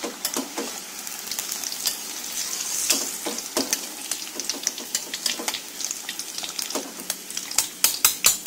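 Battered sweet potato slices sizzling in hot oil in a wok as a metal spatula scoops them into a wire-mesh strainer, with scattered clinks of metal on metal. Near the end, a quick run of sharp metal taps, about four a second, as the strainer and spatula knock against the wok while the fritters drain.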